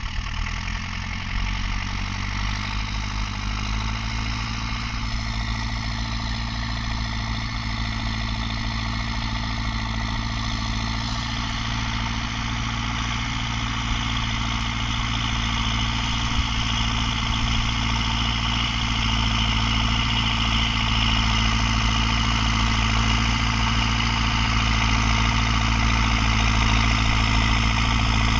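Belarus 920 tractor's four-cylinder diesel running steadily under load as it pulls a plough, its pitch rising a little in the first few seconds and growing slowly louder as the tractor draws closer.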